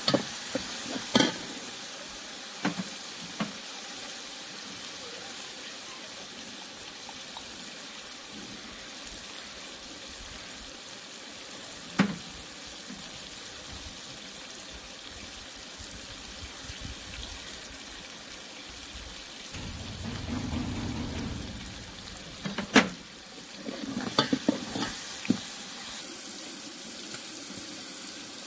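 Vegetables sizzling steadily in a large pot over a fire while being stirred, with a few sharp clinks of a metal slotted ladle against the pot, several of them close together near the end. A low muffled rumble rises for about two seconds just past the middle.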